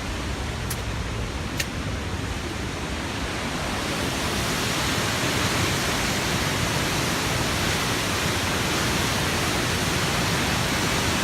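Waterfall at high flow, a steady full rush of falling water that swells slightly about four seconds in.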